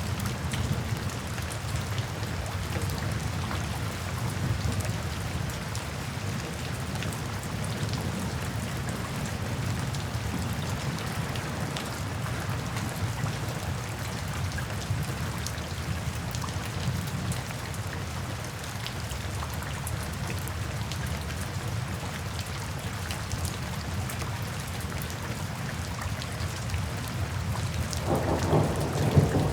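Steady rain falling, with a low thunder rumble underneath that swells louder near the end.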